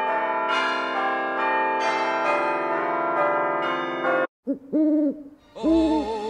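Bell-like chimes ringing, many pitches sounding together and sustaining, which cut off about four seconds in. After a brief gap come a few short wavering tones, then music with a bass line starts near the end.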